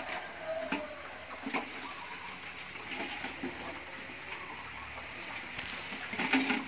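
Palm sap trickling from a strainer basin into a wide wok, a steady watery hiss with a few light knocks.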